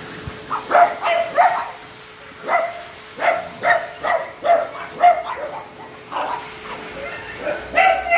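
Dog barking: a long run of short barks, about two a second, beginning just under a second in.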